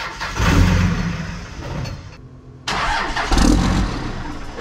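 A 2001 Dodge Ram's 5.9-litre Cummins inline-six turbo diesel starting and then quickly dying, twice. The engine starts but will not keep running; the owner suspects it is out of diesel.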